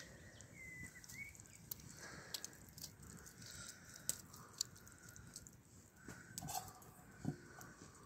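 Faint, moist sounds of boiled meat being pulled apart by hand and cut with a small knife over a tray of raw potatoes and onions, with scattered light clicks.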